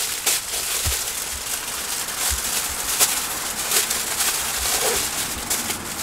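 Aluminium foil crinkling and crackling as hands wrap sweet potatoes in black baking foil, with sharp crinkles now and then.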